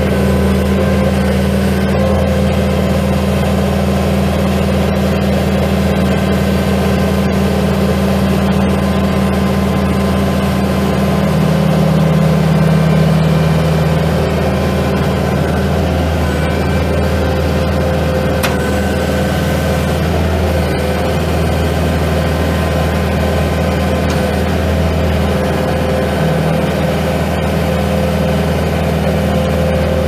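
2014 Bobcat S750 skid steer's 3.4-litre four-cylinder diesel engine running steadily as the loader is driven and its bucket is raised. It gets a little louder and changes pitch for a few seconds near the middle.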